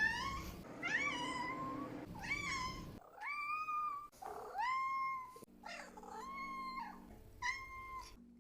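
Domestic cat meowing over and over, about seven meows each under a second long. Each meow rises quickly and then holds its pitch.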